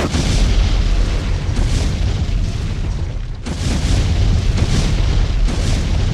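Deep booming rumble with swells of hiss rising and falling every second or two: dark trailer sound design for a horror film.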